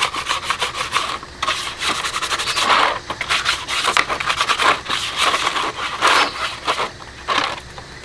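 Small brush scrubbing a wet terracotta saucer in quick back-and-forth strokes, in bouts with short pauses between them.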